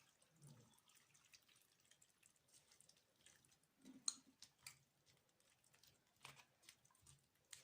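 Near silence with a few faint drips and light clicks as cooled boiled water is poured over cut vegetables for pickling.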